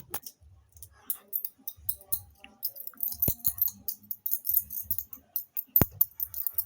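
Small hard objects rattling and clicking in quick, uneven clusters, with a couple of sharper clicks, one about three seconds in and one near the end.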